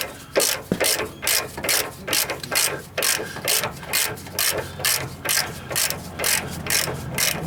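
Hand ratchet wrench clicking in steady back-and-forth strokes, about two a second, as it tightens the nut on a sway bar link over its rubber bushes.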